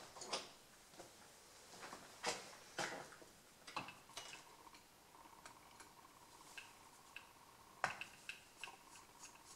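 Faint, scattered small clicks and taps of hands handling an ATV carburetor's float assembly. A faint steady tone comes in about halfway.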